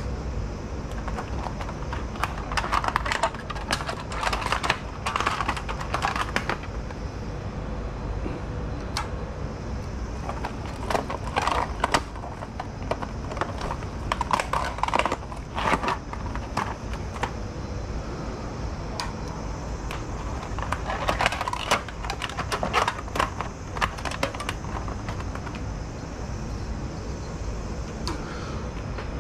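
Kitchen handling sounds: bursts of rapid clicking and knocking a few seconds long, several times, over a steady low hum.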